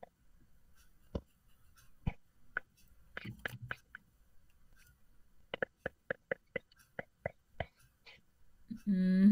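Mostly quiet, with a few faint clicks and short soft voice sounds. Near the end, a voice hums a drawn-out 'mmm' that rises in pitch.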